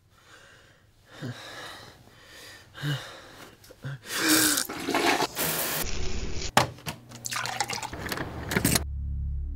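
A rushing noise swells over several seconds, with a few sharp catches in it, then cuts off suddenly near the end as low music comes in.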